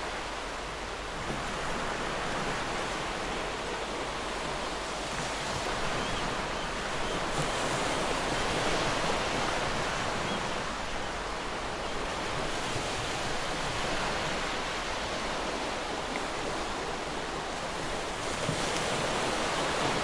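Ocean surf breaking and washing over a rocky shore: a continuous rush that swells and eases.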